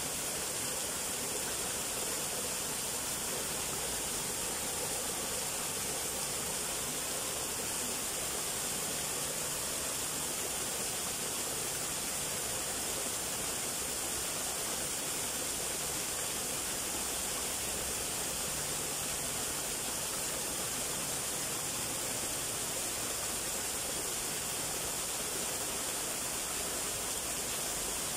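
Small waterfall, two thin streams splashing down a rock face into a shallow pool: a steady, unbroken hiss of falling water.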